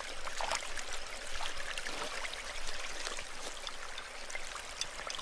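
Creek water running and trickling, with many small splashes and drips.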